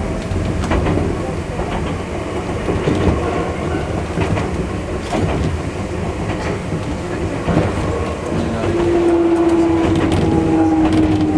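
Enoden electric train running on its track, heard from the front of the car: steady running noise with wheels clicking over rail joints in pairs. From about nine seconds in, a steady whine joins, falling slightly in pitch.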